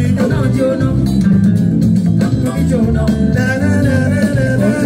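Live band music played loud through a stage sound system: bass guitar and guitar with a male singer's voice over them.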